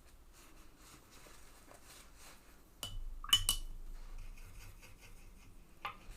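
Watercolour painting at close range: soft faint brush sounds, broken by a few sharp ringing clinks, a cluster about three seconds in and one more near the end, as the paintbrush knocks against a hard container or palette.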